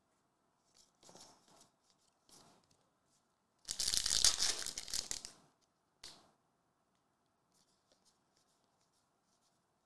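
A pack of O-Pee-Chee hockey cards being torn open: one loud tearing of the wrapper about four seconds in, lasting about a second and a half. Softer rustles of the wrapper and cards come before and after it.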